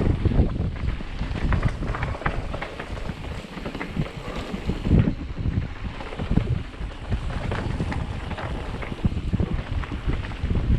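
Wind buffeting the microphone of a moving camera, with frequent irregular knocks and rattles.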